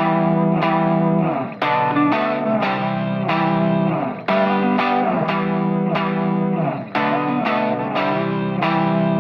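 Background music: a guitar with effects playing sustained chords, re-struck in a steady rhythm.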